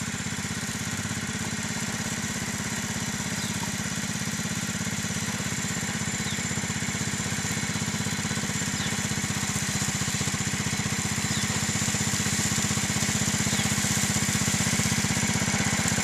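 Engine of a 7.5-inch-gauge ride-on switcher locomotive running steadily at low speed, with an even, rapid pulse, getting gradually louder as it comes on.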